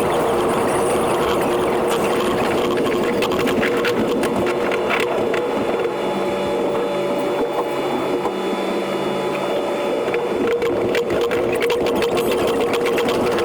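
E721-series electric train's running sound played back at ten times normal speed: a steady hum with a dense, rapid chatter of wheel clicks over the rail joints.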